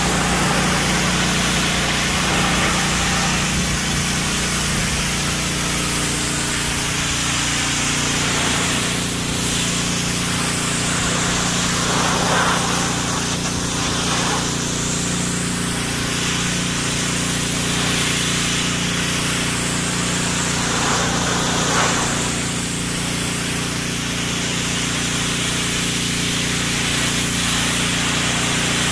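Pressure washer running steadily, its water jet hissing as it blasts grime off a pickup's sheet-metal hood, over the steady hum of the washer's motor and pump. The hiss rises and falls in tone as the wand sweeps across the hood.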